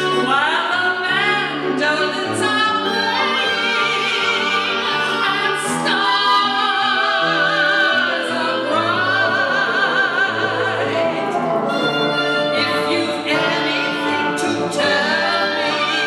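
A woman singing a classical vocal line with vibrato, accompanied by a woodwind trio with bassoon and clarinet; the bassoon holds low notes that change step by step beneath the voice.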